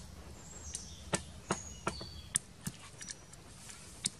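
Wooden pestle pounding a wet chili-and-herb paste in a mortar: a run of sharp knocks, about two to three a second, unevenly spaced.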